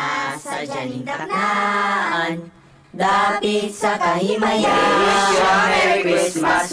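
Singing voices holding slow, drawn-out notes; they drop away about two and a half seconds in and come back louder and fuller about half a second later.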